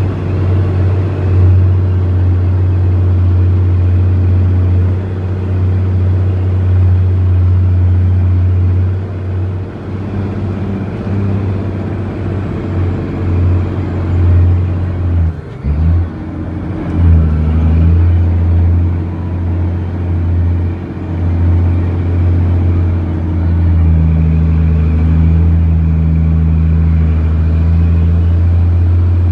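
Cat C15 inline-six diesel of an International 9300 truck, heard from inside the cab as it drives along, a steady low drone. About halfway through, the engine note dips briefly and then comes back up.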